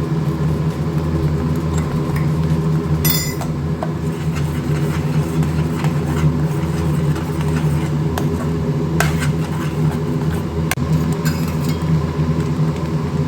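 A spoon clinking and scraping against a pan as spice masala is stirred into gravy, with a handful of sharp clinks spread through. Under it runs a steady low mechanical hum.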